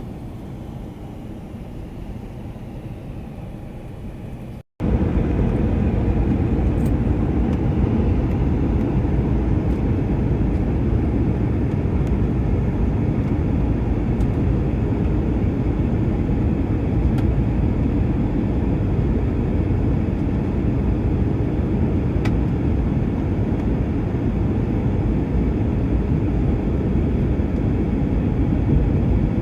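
Steady rumble of an airliner's engines and airflow heard inside the cabin during the approach. It drops out for a moment about five seconds in and comes back louder.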